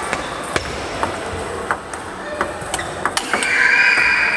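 Table tennis rally: sharp clicks of the celluloid-type ball off rubber-faced paddles and the table top, about ten hits at irregular spacing. About three-quarters of the way in a steady high-pitched tone starts and becomes the loudest sound.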